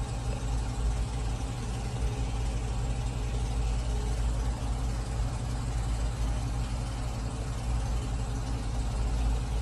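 Steady low rumble of a running engine, unchanging throughout.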